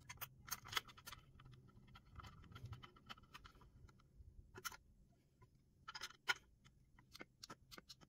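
Faint, irregular small clicks and light scraping of a metal hinge pin being fitted into the hinge of a mini lathe's clear plastic chuck guard, with the guard being handled.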